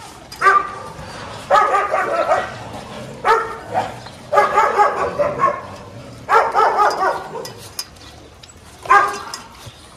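A dog barking in about six short bouts, some single calls and some strings of calls lasting about a second.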